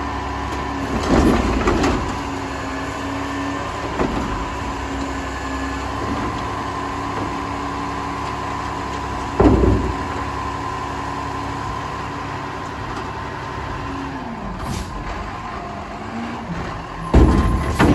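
Front-loader garbage truck with a Heil Curotto-Can arm running, with a steady whine over the engine. Several loud clanks and thuds break in, the loudest about nine seconds in and a cluster near the end.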